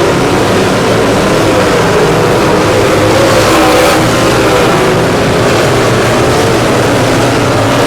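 Dirt late model race car V8 engines running hard on the track, their pitch wavering up and down.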